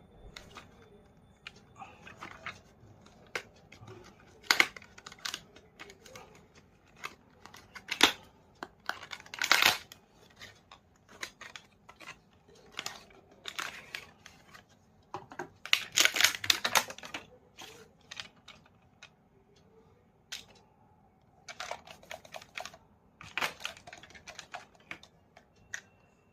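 Hands unboxing and handling a cleaning kit: scattered clicks and taps of the parts and case, with longer bursts of rustling packaging about ten seconds in and again around sixteen seconds.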